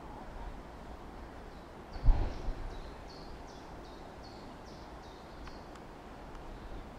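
A single low boom from a pyrotechnic charge set off to simulate a plane crash, about two seconds in, with a short rumbling tail. A bird chirps repeatedly in short high notes.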